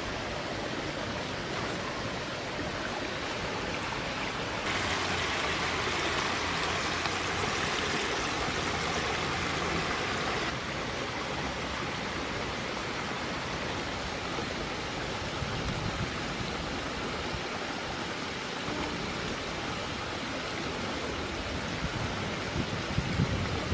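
Steady rushing noise like a stream running, brighter and a little louder for about six seconds starting around five seconds in.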